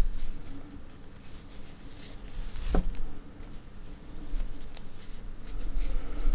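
Crochet hook and yarn rustling and scratching as half double crochet stitches are worked, with one small click about three seconds in.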